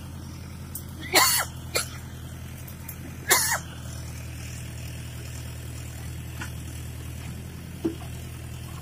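Tractor's diesel engine running steadily while it powers a backhoe attachment, with short loud noises about one second in, just under two seconds in and about three seconds in, and a fainter one near the end.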